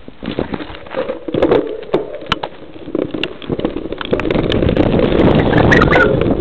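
Mountain bike riding a stony dirt trail: the bike and its camera mount rattle with scattered knocks and clicks over the tyres on gravel. About four seconds in, a steady, louder rush of wind on the microphone takes over.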